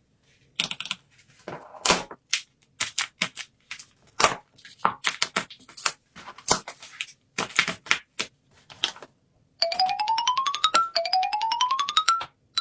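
Irregular taps, clicks and rustles of paper craft pieces being handled and set down. About ten seconds in come two rising, buzzy cartoon sound-effect tones, one after the other.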